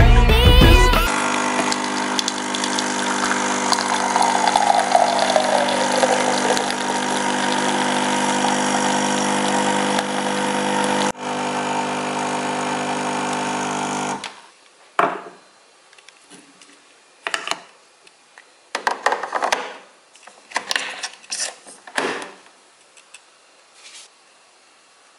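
Capsule coffee machine's pump buzzing steadily as it pushes milk into a glass, cutting off about two-thirds of the way through; a few short, quiet noises follow.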